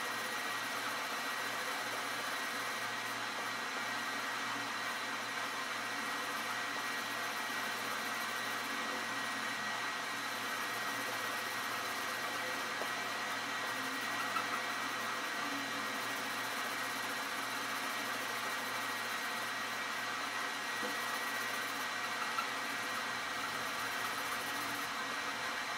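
Steady machine-like hiss and hum with a faint constant high whine, and two small ticks partway through.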